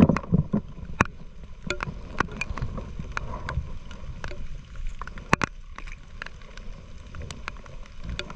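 Movement through wet grass and leaves beside shallow water: irregular sharp clicks, knocks and rustles over a low rumble of handling and wind noise.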